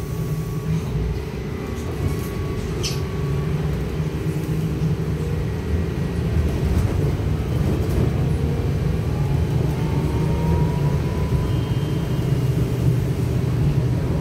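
Inside a Trolza-5265.00 Megapolis trolleybus under way: a steady low hum and rumble from the running vehicle. A faint whine from the electric drive rises in pitch a little over half way through.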